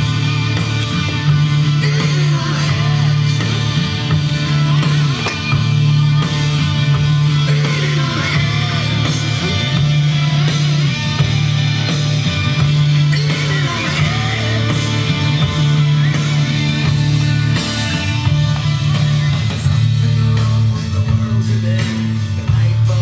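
Rock song with singing and electric guitar playing loudly through a JVC Kaboom RV-NB52 boombox, with heavy bass from its powered woofer.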